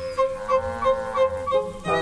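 Background music: a short note repeated about three times a second over a held tone, with a rising-and-falling pitched line in the middle.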